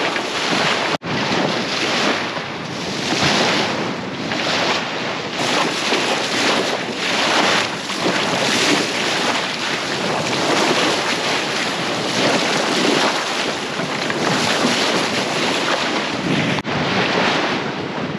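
Water rushing and splashing along a sailboat's hull as it cuts through waves under sail, swelling and easing with each wave, over heavy wind buffeting on the microphone. The sound cuts out for an instant twice, about a second in and near the end.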